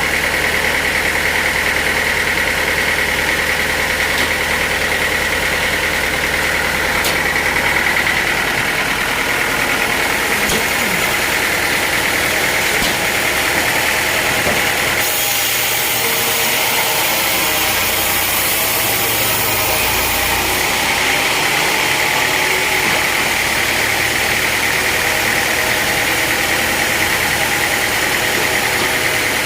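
Sawmill machinery running steadily: an engine-driven saw with a constant high whine. A brighter hiss joins in for several seconds past the middle.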